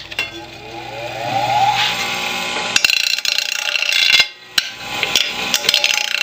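Bench grinder switched on, its motor whine rising in pitch over the first two seconds as it spins up. Then an aluminium bar is pressed against the wheel and ground, a harsh grinding with a short break about four seconds in. The grinding smooths the welded track so ball bearings can roll along it.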